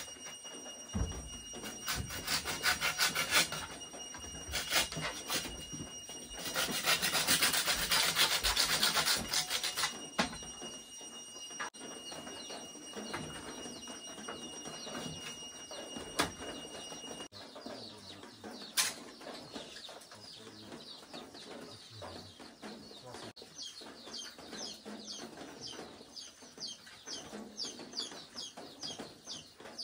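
Hand saw cutting through a piece of wood in two bouts of quick back-and-forth strokes. Later come a few scattered knocks, and near the end a chicken clucking in short repeated calls.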